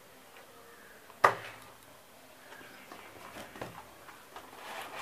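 Small cardboard shipping box handled on a cloth-covered table: a sharp knock about a second in, then light scraping and rustling of cardboard that grows near the end as the lid is worked open.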